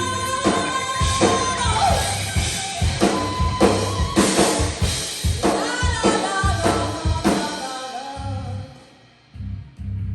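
Heavy metal band playing live through a PA: hard drum-kit hits under a long held note, the playing thinning out and dropping away about nine seconds in, then briefly picking up again near the end.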